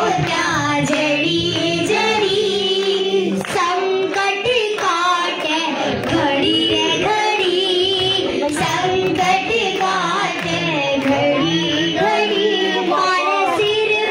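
A young girl singing a Hindi Shyam bhajan into a microphone, with a sustained sung melody.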